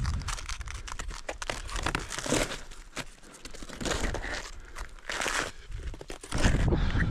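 Snowshoes crunching and scraping on snow in slow, uneven steps, with crinkly crunches. Wind buffets the microphone again near the end.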